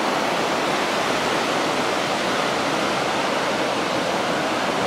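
Sea waves breaking against the shore at high tide, heard as a steady, even rushing of surf.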